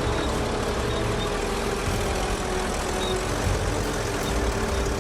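Heavy diesel engine of an excavator running steadily at low revs, a continuous low rumble.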